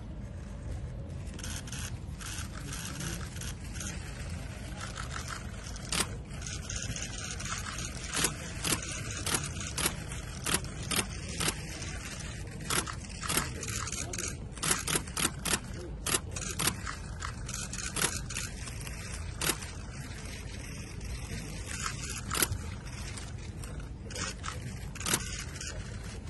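Many camera shutters clicking in quick, irregular bursts from photographers shooting a posed group, thickest in the middle, over a steady low background noise.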